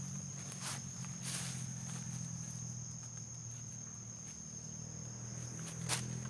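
Steady, high-pitched insect chirring, like a cricket, with a few short rustles and sharp clicks over it, the sharpest just before the end.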